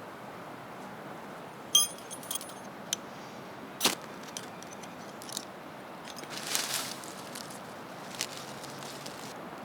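Small hard objects being handled and clinking, with one ringing metallic clink about two seconds in, then scattered sharp clicks and a brief rustle, over a steady hiss.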